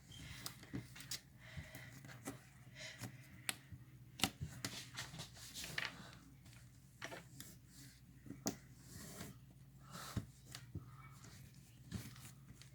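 Slime being squeezed and stretched by hand, giving an irregular run of small sticky clicks and pops.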